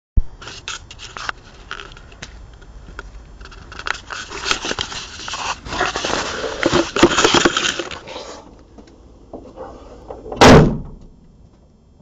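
Rustling and clicking from a Nokia N73 mobile phone being handled against its microphone, followed by one loud thump about ten and a half seconds in.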